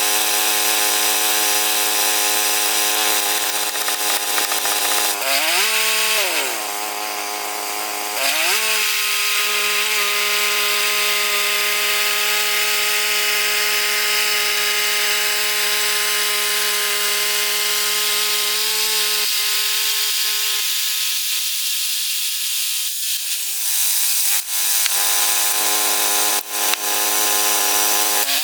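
Band sawmill running steadily while its Ripper 37 band blade cuts through white oak, the engine holding one even note. The engine pitch sags and recovers twice about six to eight seconds in, and drops again near the end.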